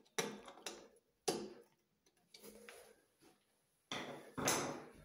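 Hand-tightening a fitting on a Grohe concealed shower valve: a few sharp clicks about half a second apart, then a longer rustle of handling near the end.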